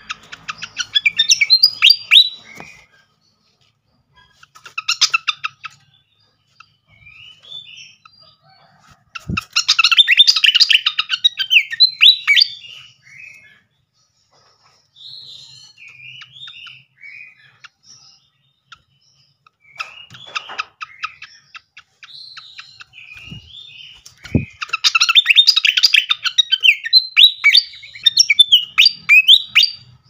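Malaysian pied fantail singing: loud bouts of rapid, chattering chirps and whistled notes, four of them, with softer scattered chirps in between. A few short low knocks sound near the middle and about two-thirds through.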